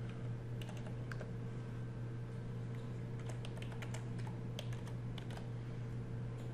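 Computer keyboard typing: scattered, irregular key clicks as a short line of text is typed, over a steady low hum.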